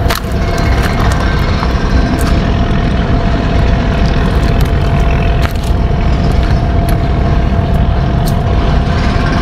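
Steady loud rumble of heavy machinery from a nearby construction site, with a constant whine over it and a few sharp clicks.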